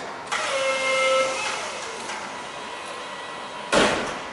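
Mitsubishi forklift working a load: a motor whine with a few steady tones for about a second, then a single loud bang near the end.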